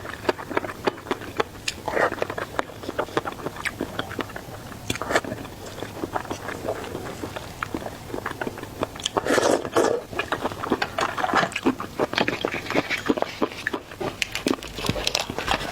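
Close-miked mouth sounds of a person biting and chewing seafood: a dense run of wet clicks and smacks, with louder bites about two seconds in and again near the middle.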